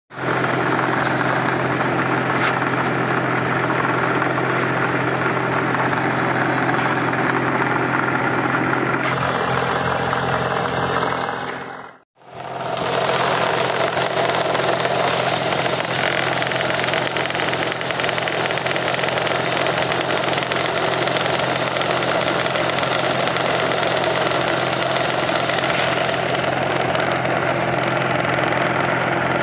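Machinery running steadily with an even, engine-like hum. It briefly drops out about twelve seconds in, then resumes.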